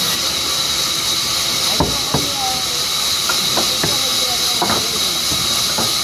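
Sawmill band saw running with a steady high hiss and whine, while wooden planks knock sharply against the saw table about six times, the loudest a little under two seconds in.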